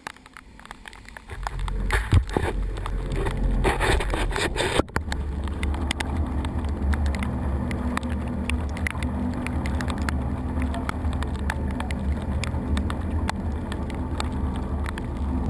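Evinrude outboard motor on a trailer boat running at speed: a loud steady drone mixed with wind and water rush and scattered small knocks. It starts quieter with a few knocks and builds to full level from about a second and a half in.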